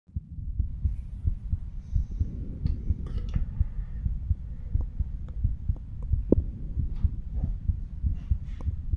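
A human heartbeat heard through a stethoscope at the mitral area of the chest: repeated low lub-dub heart sounds, with a few faint clicks over them.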